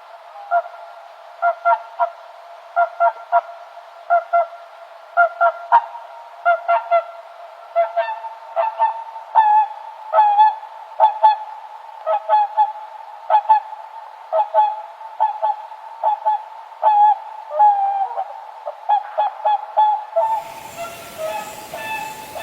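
Swans calling: a long series of short calls, often in quick twos and threes, several to a second at times. About two seconds before the end a steady hiss joins in.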